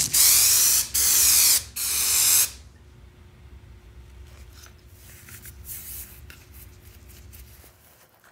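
Aerosol spray adhesive hissing out of the can in three short bursts, one after another. Faint rustling and handling of foam padding and fabric follows.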